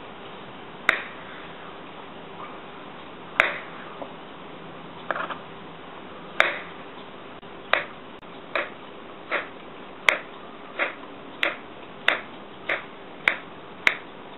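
Kitchen knife knocking on a cutting board as a peeled banana is cut into rounds: about a dozen sharp taps, one per slice, spaced out at first and then coming steadily about every two-thirds of a second.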